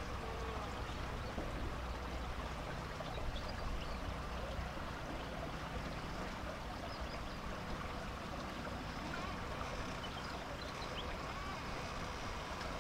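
Small houseboat under way: a steady low motor hum with water washing and trickling past the hull.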